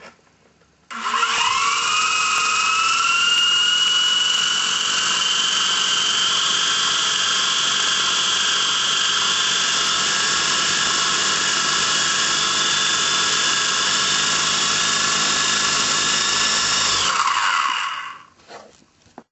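Electric RC helicopter's motor and rotors spinning up about a second in with a rising whine. They run at a steady, high-pitched whine, then wind down with a falling pitch and stop near the end.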